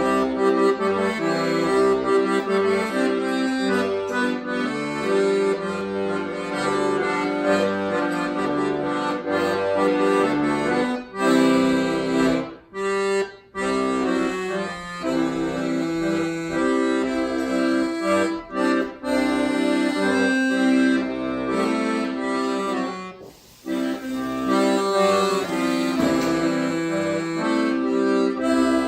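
Instrumental background music: held chords over a repeating bass line, with brief drop-outs about twelve and twenty-three seconds in.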